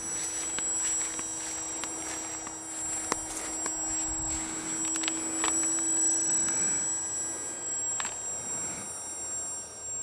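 64 mm electric ducted fan of a TechOne Neptune flying wing in flight, a steady high-pitched whine.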